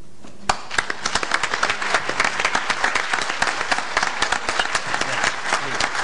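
Audience applauding, beginning suddenly about half a second in with a dense run of hand claps.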